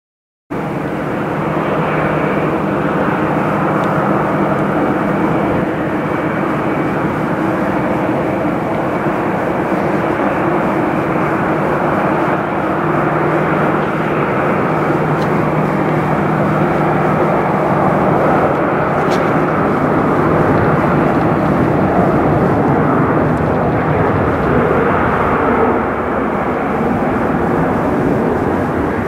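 Boeing 737-700 airliner's CFM56 jet engines running during the landing roll on the runway: a loud, steady rushing noise with a low hum underneath.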